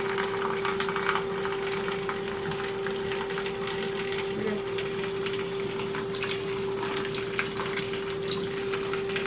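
A steady hum over a continuous rushing noise, like water running.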